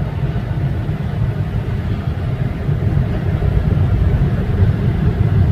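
Steady low road-noise rumble inside a moving Honda Brio RS's cabin, the tyre and road drone the owner complains of, growing slightly louder.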